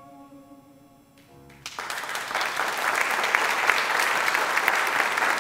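The last held notes of the musical accompaniment fade out, then an audience breaks into applause about a second and a half in and keeps clapping steadily.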